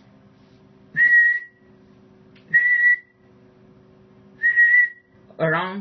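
A man whistling three short, steady notes into a transceiver microphone, about a second apart, to drive the GK-71 linear amplifier on SSB for a peak-envelope-power reading. A faint steady low hum runs underneath.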